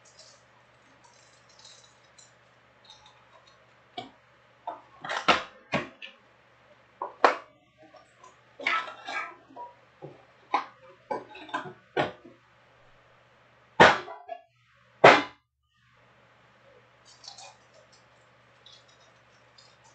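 Foil-wrapped Panini Prizm trading card packs being handled and set down in stacks on a table: a run of sharp knocks and crinkles, the two loudest about three-quarters of the way through, over a faint steady hum.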